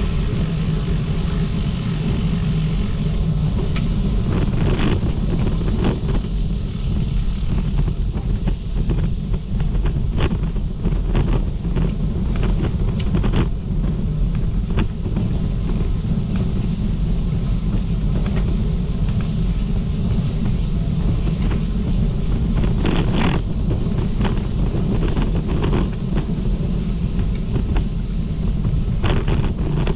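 Wind buffeting the microphone: a steady, loud low rumble, with many short clicks and rattles scattered through it.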